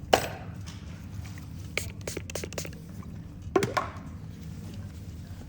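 Pedicure nail nippers snapping through thick, hard toenail, making sharp crisp clicks. One loud snap comes at the start, a quick run of smaller clicks about two seconds in, and another loud pair at about three and a half seconds, over a low steady hum.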